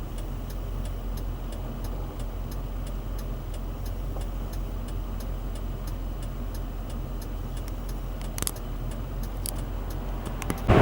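Mercedes-Benz ML SUV idling with a steady low hum, with light, regular ticks a few times a second over it. A brief louder rustle or knock comes about eight seconds in.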